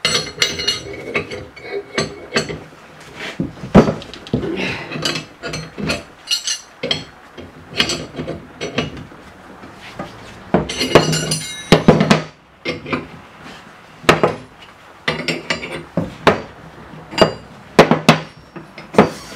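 Steel wrenches clanking and clinking against a C-frame ball-joint press as its forcing screw is backed off, freeing a freshly pressed-in control-arm bushing. There are many separate metallic knocks, with busier clusters about halfway through and near the end.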